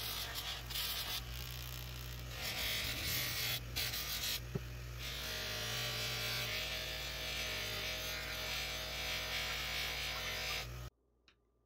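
Craftsman bench grinder's induction motor running steadily, with the steel katana blade held against its wheel and grinding with a rasping hiss. The sound cuts off suddenly near the end.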